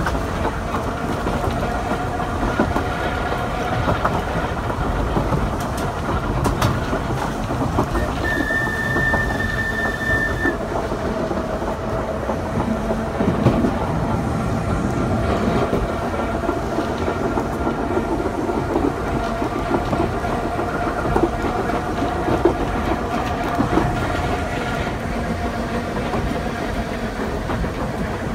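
Manx Electric Railway electric tram running on its rails, heard on board: steady rumble and a faint whine, with occasional wheel clicks over the track. About eight seconds in, the tram's whistle gives one steady toot of two to three seconds.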